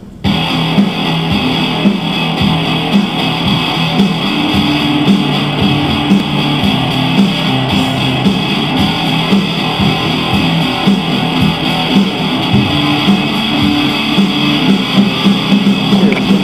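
Guitar-led music with a steady, repeating pattern of notes, which cuts off just after the end.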